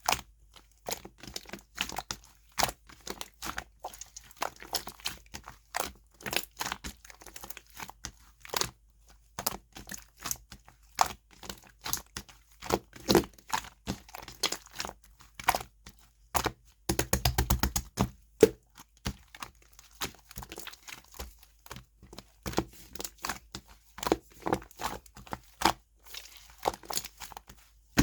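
Slime being mixed and worked by hand: a steady stream of sharp crackles, clicks and tearing sounds as it is stretched, pressed and folded, with a quick rapid run of pops a little over halfway through.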